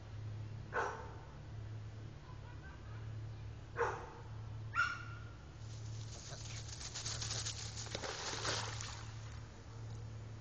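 North American river otters calling: three short sharp calls a few seconds apart, then about three seconds of rapid scratchy chatter, over a steady low hum.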